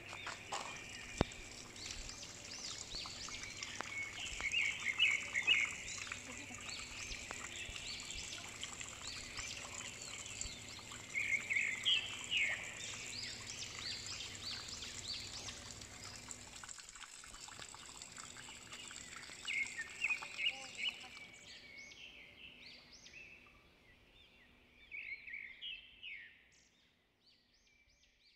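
Forest birds calling, short runs of high chirping notes repeated every few seconds, over a steady high thin tone; it all fades out near the end.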